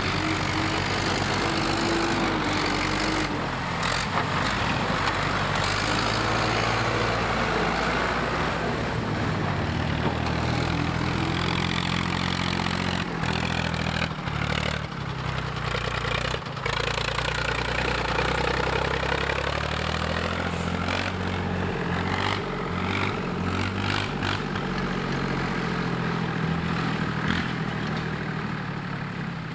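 Tractor diesel engines running, with the revs rising and falling.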